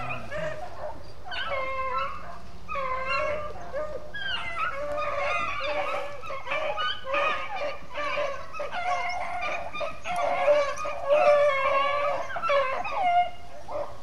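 A pack of beagles baying together on a rabbit's trail, several voices overlapping, growing louder from about ten seconds in: the dogs are in full chase of a jumped swamp rabbit.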